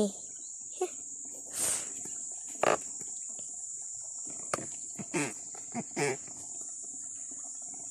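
Steady high-pitched buzzing drone of insects in riverside vegetation, with a few faint short knocks and handling sounds over it.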